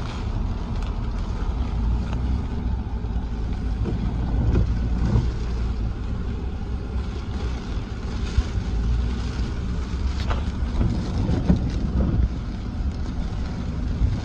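A vehicle's engine running steadily, with wind buffeting the microphone and a few knocks and rattles.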